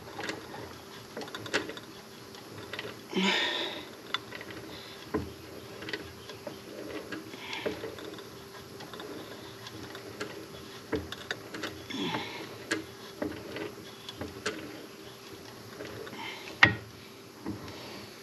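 Quiet workshop handling sounds: scattered light clicks and knocks, with short scraping or rustling noises about three and a half and twelve seconds in and a sharper click near the end, over a faint steady hum.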